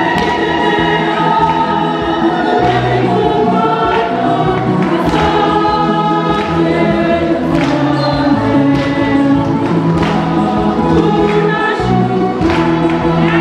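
Church choir singing a hymn in full voice.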